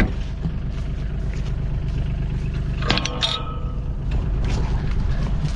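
A vehicle engine running steadily at a low rumble, with one short clank about three seconds in.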